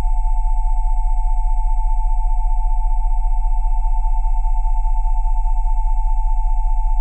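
Steady electronic sine tones at 727, 787 and 880 Hz sounding together over a very deep 20 Hz tone, with a fast, even pulsing in loudness where the tones beat against each other.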